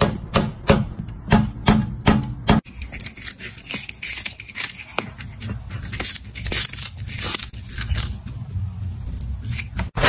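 A cat's paw knocking a small stainless steel bowl on a tile floor, sharp clacks about three a second. About two and a half seconds in, this gives way to a cat crunching and chewing a piece of dried fish, irregular crackly clicks.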